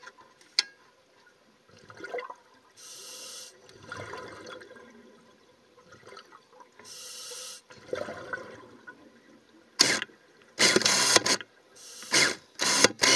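Scuba breathing through a regulator underwater: two hissing inhalations a few seconds apart, each followed by softer bubbling exhalations, then loud bursts of exhaled bubbles near the end.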